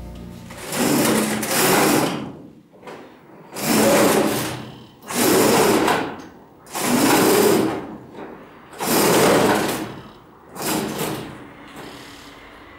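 Slatted roller shutter being hauled up by its pull strap in about six strokes, each one a rattling clatter of the slats winding onto the roller. The last stroke is weaker.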